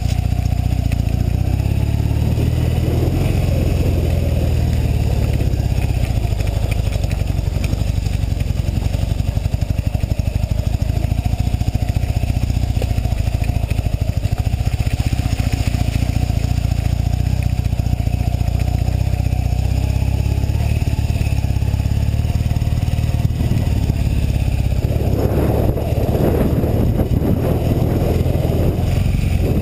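Honda CB450SC Nighthawk's 447 cc parallel-twin engine running steadily as the motorcycle is ridden slowly over a rough dirt road, with a spell of clatter near the end.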